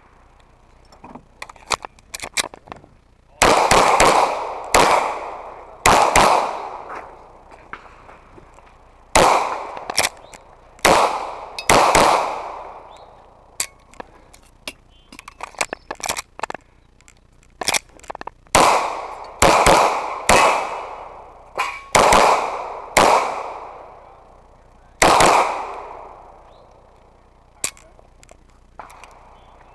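A string of pistol shots fired one after another about a second apart, in groups with short pauses between, each shot followed by a brief echo. Fainter clicks and pops are heard between the shots.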